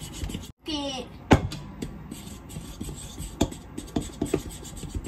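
A spoon stirring cake batter in a mixing bowl, with many small irregular clicks and taps of the spoon against the bowl. There is a sharp, loud knock about a second in, and a brief vocal sound just before it.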